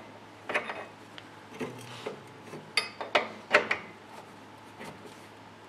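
Several irregular sharp metal knocks with scraping and rubbing between them as a C3 Corvette rear strut rod is forced into its mount. The loudest knocks come about three to three and a half seconds in.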